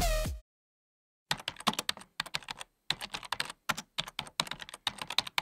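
Electronic dance music cuts off abruptly about half a second in. After a short silence, computer keyboard keys are typed in quick, irregular clicks, several a second.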